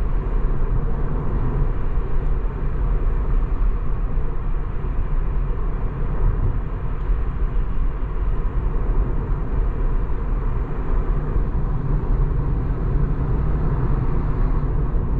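Steady rolling tyre and wind noise inside the cabin of a Tesla Model 3 electric car cruising at about 65–75 km/h. It is a low, even rumble with no engine note.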